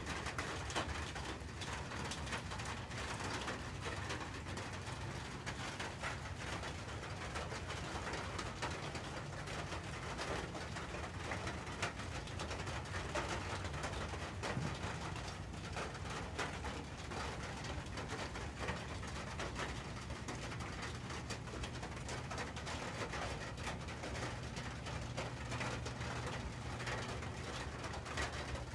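Steady rain pattering on a metal gazebo roof.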